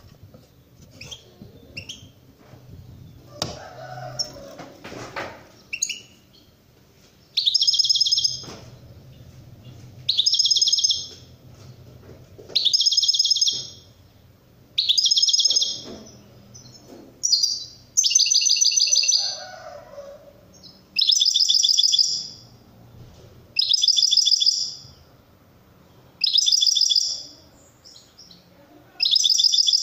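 Caged European goldfinch (saka) singing the 'şakşaklı' song that Turkish keepers name, in loud, high, trilling phrases of about a second each, repeated about every two and a half seconds. For the first several seconds there are only a few scattered chirps and some soft knocks.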